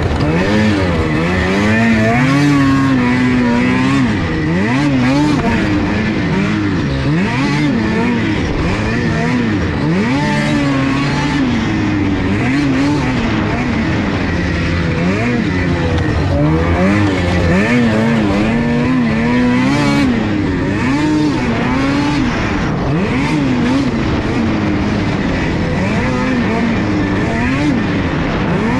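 Ski-Doo snowmobile engine revving up and down again and again as the throttle is opened and closed, over a steady rush of noise.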